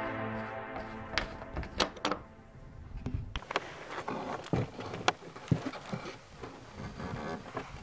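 Music fading out, then irregular sharp clicks and knocks, a few a second, over a faint hiss.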